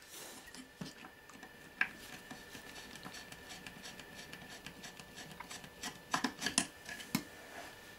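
Faint rubbing and scraping of hands and a screwdriver on the metal frame of a VHS-C tape drive, with a few light clicks and taps, loudest about two seconds in and again near the end.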